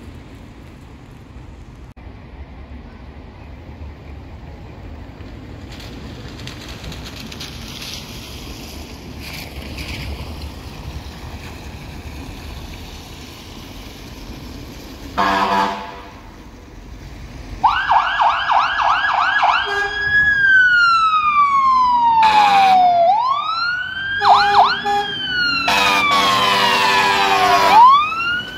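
Scania fire engine leaving on an emergency call: a low rumble for the first half, a short air-horn blast about halfway in, then its siren switching between a fast yelp and a slow rising-and-falling wail, with further horn blasts cutting in near the end.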